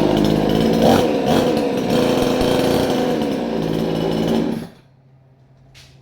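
Two-stroke chainsaw running loud at high revs, its pitch dipping and rising several times, then cutting off suddenly near the end. The previously dead saw is running again after its spark plug was burned clean.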